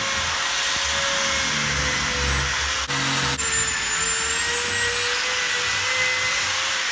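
Handheld electric drill running steadily, with a constant high whine over the motor noise, briefly interrupted about three seconds in.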